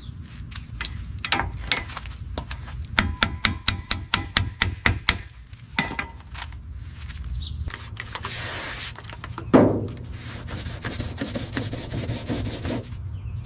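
Workshop handwork sounds over a steady low hum: a quick run of sharp taps, about five a second, then rough rubbing or scraping noise with one loud knock part-way through.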